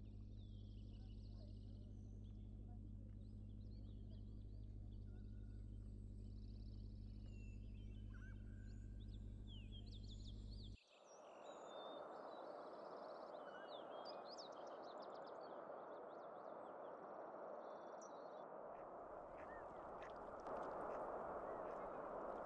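Birds chirping over a steady low hum. About eleven seconds in, the hum cuts off suddenly and a steady hiss takes over, with the chirping going on above it.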